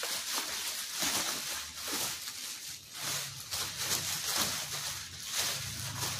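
Large plastic garbage bag rustling and crinkling irregularly as a cardboard box is worked into it and handled. A low steady hum joins about halfway through.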